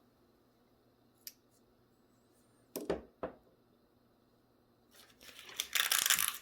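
Folding multitool being handled: a faint click, then two sharp metal clicks about half a second apart as the tool is worked open. Near the end comes a loud rustling, scraping handling noise lasting about a second and a half.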